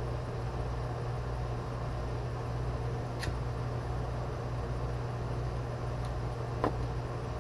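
Steady low mechanical hum with a faint hiss, and two faint ticks, one about three seconds in and one near the end.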